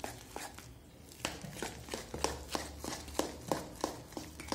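Ground urad dal batter beaten by hand in a steel bowl, a regular slapping about three times a second that settles into a steady rhythm about a second in. The beating whips air into the batter to make it fluffy.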